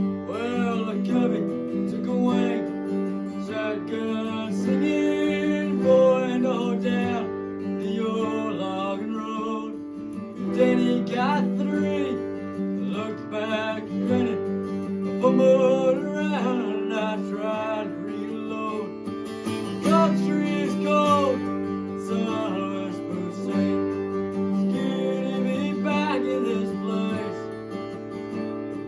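Acoustic guitar strumming chords, with a bending melody line played or sung over them.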